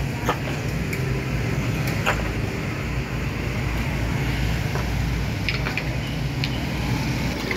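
Mini excavator's diesel engine running steadily while working, with a few short clanks and knocks scattered through.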